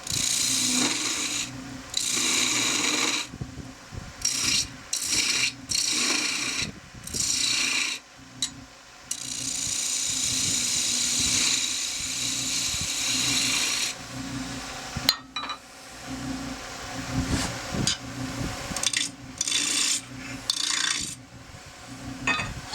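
Parting tool cutting into a pear-wood spindle spinning on a wood lathe, in repeated short cuts with one longer cut of about five seconds in the middle, over the lathe's steady hum.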